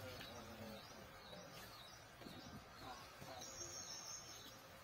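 Faint outdoor ambience with birds chirping, including a thin high call lasting about a second about halfway through.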